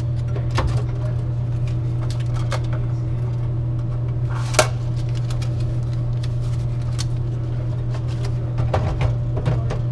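Plastic clicks and knocks of a vending machine bill acceptor's cash box being opened, emptied of bills and slid back into the machine, with one sharp click about four and a half seconds in. Under them runs a steady low hum.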